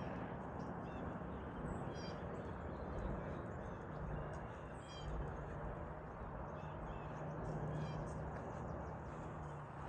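Birds calling a few times, about every three seconds, over a steady rushing noise.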